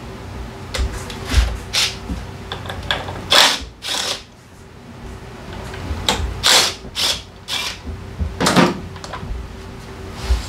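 Workshop tools and metal parts being handled: a string of irregular clanks and scrapes over a steady faint hum.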